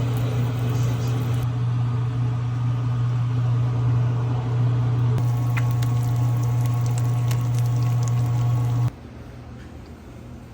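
An electrical appliance running with a steady low hum, with a few faint ticks about halfway through. The hum cuts off suddenly about nine seconds in.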